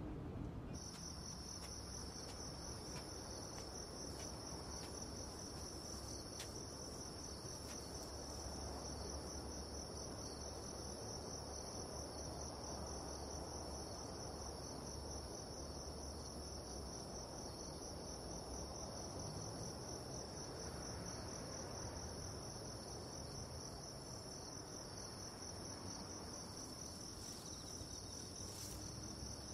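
Crickets chirring in a steady, continuous high-pitched trill, over a low background rumble.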